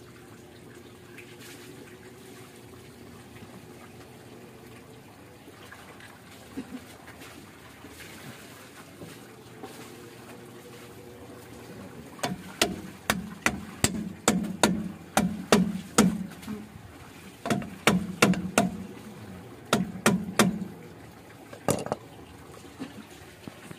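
A hammer tapping the grease cap onto a new Honda Fit rear wheel hub, seating it. About twenty sharp metal knocks, each with a short low ring, come in three quick runs starting about halfway in, with one last knock near the end.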